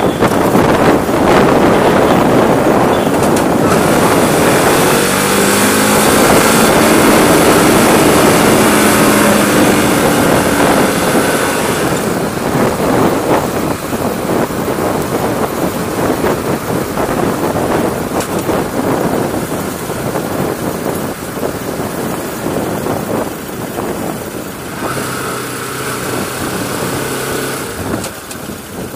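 Bajaj Pulsar RS 200 motorcycle's single-cylinder engine running on the road, mixed with heavy wind rushing over a helmet-mounted camera's microphone. The engine note stands out for several seconds starting about five seconds in, and the wind noise grows gradually quieter through the second half.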